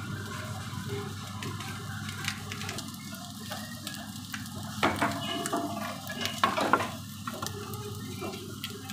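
Food sizzling on a hot cast-iron sizzler plate over a gas burner as rice and shredded cabbage are piled onto it, with a few sharp clicks and knocks on the plate, the loudest about five seconds in and again near seven seconds.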